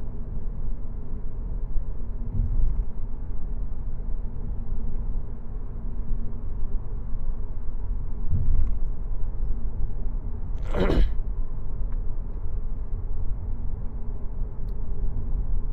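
Steady low road and tyre rumble inside the cabin of a 2019 Audi A4L being driven at speed, with no clunking from the rear suspension: the fix appears to have cured it. About eleven seconds in there is one short, sharp noise.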